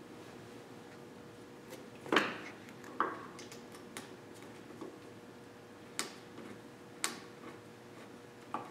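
About half a dozen sharp metallic clicks and clinks from a screwdriver working the hose clamps on fuel-line samples, the loudest about two seconds in, over a faint steady hum.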